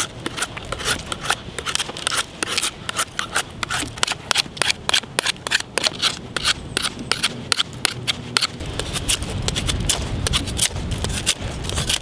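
Buck 110 folding knife shaving a wooden stick: quick repeated strokes, several a second, each a short sharp scrape as a shaving peels off the wood.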